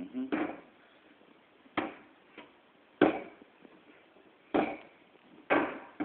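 Dough being kneaded by hand on a kitchen countertop: about five heavy thumps a second or so apart as the lump is slapped and pressed down onto the counter.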